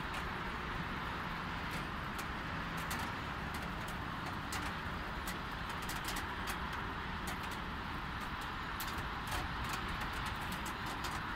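Light rain falling, with scattered drops ticking irregularly on nearby surfaces, over a steady hiss of distant road traffic on wet streets.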